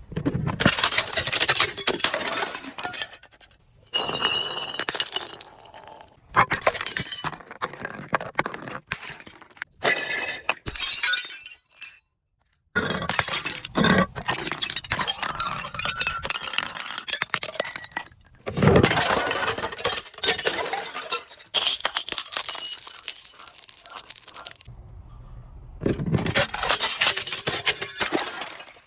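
Glass bottles being broken and crushed: dense crunching and crackling of glass with shards clinking, in about seven bouts that start and stop abruptly.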